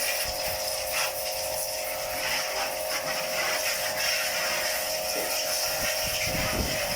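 Washing machine running with its drum turning: a steady whine over an even hiss.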